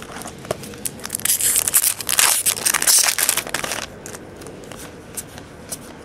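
A trading-card pack's wrapper being torn open by hand, a loud crinkling tear from about a second in to nearly four seconds, followed by lighter rustles and clicks as the cards are handled.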